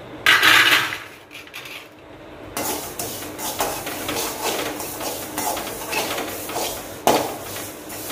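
Metal spatula scraping and stirring black sesame seeds as they dry-roast in an aluminium pan, in a run of short repeated strokes. There is a louder clatter just after the start and a sharp click about seven seconds in.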